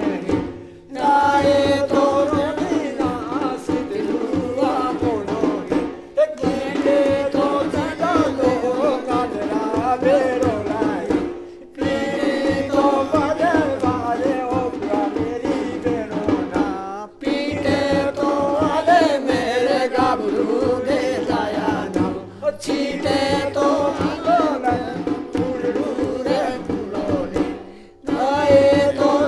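Jaunsari folk song, a harul, sung by a group of men over a dhol drum beat, in sung phrases about five seconds long with a short break between each.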